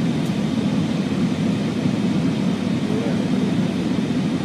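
Steady flight-deck noise of an Airbus A340 in flight: airflow and engine noise heard inside the cockpit, an even low rushing sound with no breaks.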